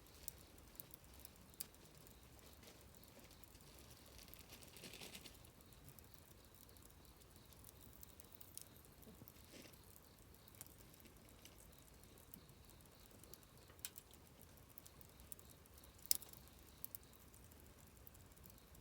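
Campfire of burning wood crackling quietly: scattered small pops and snaps, a soft hiss lasting about a second some five seconds in, and one sharper pop near the end.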